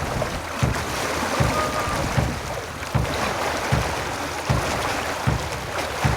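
Sea and wind noise aboard a sailing catamaran under way, with a short, even low thump repeating about every three-quarters of a second.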